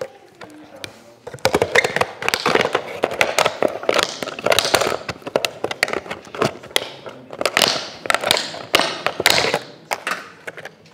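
Clear plastic bottles being handled and twisted, crinkling and crackling with irregular taps and clicks in bursts from about a second in.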